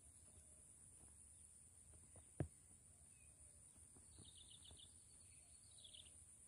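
Near silence: quiet outdoor ambience with a steady high-pitched hum, a single knock about two and a half seconds in, and a short run of quick bird chirps about four seconds in.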